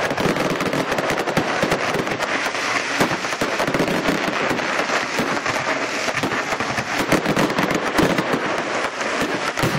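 Fireworks going off: a dense, continuous crackle of many rapid pops, with a few louder cracks standing out.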